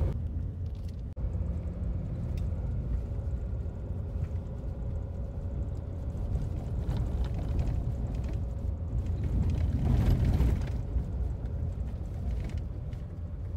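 Steady low rumble of a vehicle driving on a gravel dirt road, heard from inside the cab: tyres on loose gravel and the engine.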